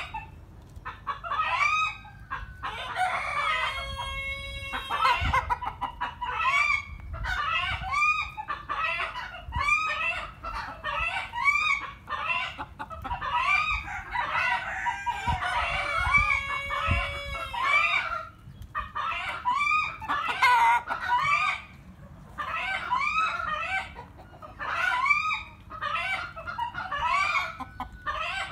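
Ayam Cemani chickens clucking and cackling over one another in a steady run of short calls, with a long drawn-out call about four seconds in and another about fifteen seconds in.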